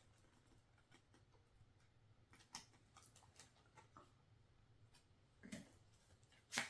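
Near silence with scattered faint clicks and taps of photo cards and album packaging being handled, and a few sharper ticks, the loudest near the end.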